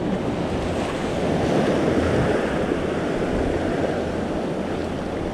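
Ocean surf washing steadily, with wind on the microphone.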